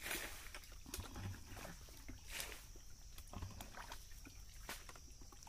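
Hands groping in a shallow muddy pool: irregular splashes and squelches of water, mud and wet leaves, about one a second.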